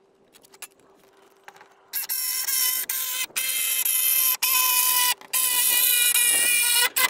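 Jigsaw cutting through a sheet of 18 mm OSB. It starts about two seconds in and runs in several spells with brief stops, cutting out just before the end.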